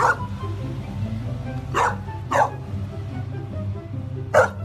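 A puppy barking: four short barks, two of them close together near the middle, over steady background music.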